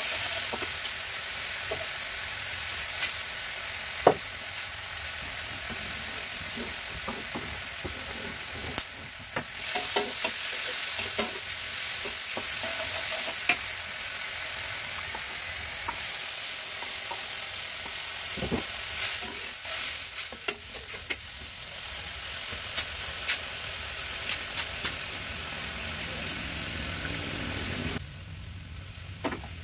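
Ground seasoning frying and sizzling in a steel wok over a gas flame, stirred with a metal spatula that scrapes and knocks against the pan now and then. About a second and a half before the end the sizzle drops away sharply, with liquid now in the wok.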